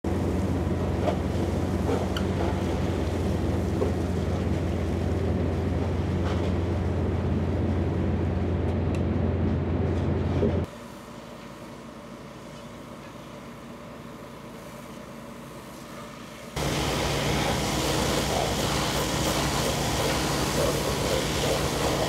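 Horizontal directional drilling rig running as the reamer breaks out of the bore, a steady low machine drone. About halfway through it drops much quieter for some six seconds, then comes back loud with a broad hiss of drilling mud spraying from the emerging reamer.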